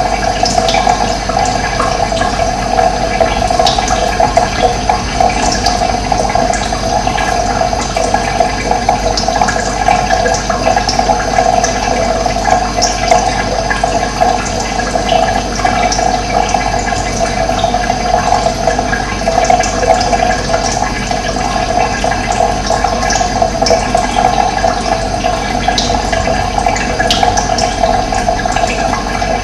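Steady rush of running water, with scattered brief high chirps of birds over it.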